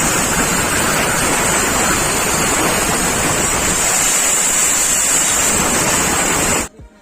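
Compressed-air blow gun blasting a steady, loud hiss while cleaning motorcycle engine parts during an oil service, cutting off suddenly near the end.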